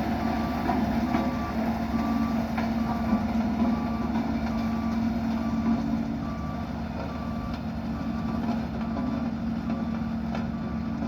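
Dynapac road roller running with its reversing alarm beeping steadily, about once a second, over the engine's steady hum.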